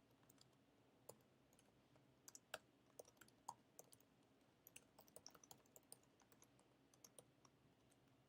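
Faint computer keyboard typing: irregular single keystrokes and short runs of clicks, with pauses between them.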